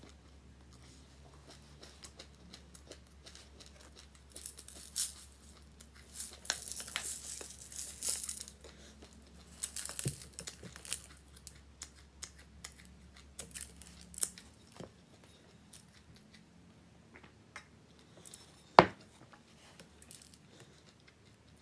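Packaging being crinkled and torn open in short irregular bursts of rustling, with one sharp tap or knock near the end.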